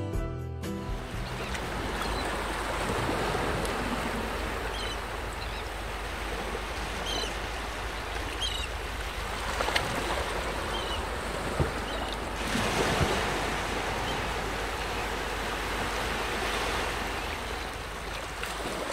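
Surf washing against a rocky lava shoreline: a steady rushing noise, with a few short high chirps in the middle.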